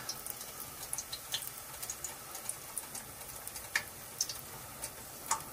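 Corn fritter batter deep-frying in oil at about 350°F: a faint steady sizzle with irregular crackling pops, a couple of them sharper near the end.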